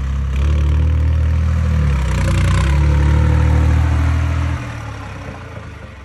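New Holland 3630 tractor's diesel engine running steadily. Its sound drops off about three-quarters of the way through and fades away.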